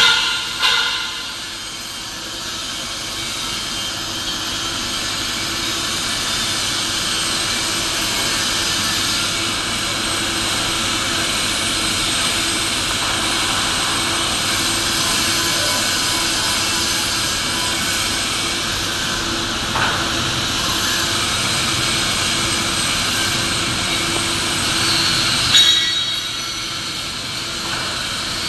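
Steady hiss and hum of machinery in a steel fabrication workshop, with a few sharp knocks: one near the start, one about two-thirds of the way through and a louder one near the end.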